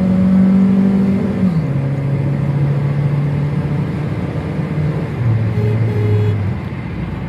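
A Honda Civic's 1800 cc engine pulling hard under acceleration at highway speed, heard from inside the cabin. Its steady note steps down in pitch about a second and a half in as the car keeps gaining speed, the sign of an upshift.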